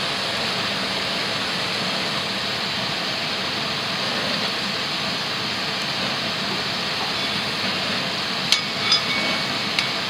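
Handheld propane torch hissing steadily, its flame held on a burning diesel-soaked rag. A few light knocks come near the end.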